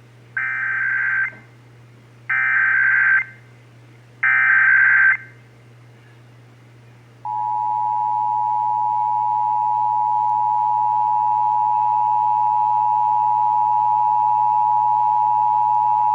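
Emergency Alert System SAME header: three buzzing digital data bursts, each about a second long and about a second apart, marking the start of an alert. About seven seconds in, the EAS attention signal begins: a steady two-tone 853 and 960 Hz alert tone, held for about nine seconds.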